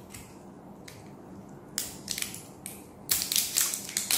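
Small plastic parts and batteries being handled as batteries are fitted into a plastic battery compartment: a few sharp clicks about two seconds in, then a quick run of clicking and crinkling near the end.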